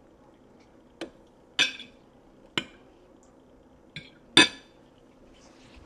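Metal fork clinking against a dinner plate while a slice of pizza is cut and picked at: five sharp clinks, the loudest near the end.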